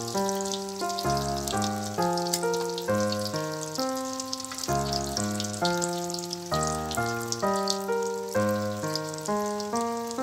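Spring rolls deep-frying in hot oil in a wok, a constant crackling sizzle, under background music of struck keyboard-like notes in a steady stream.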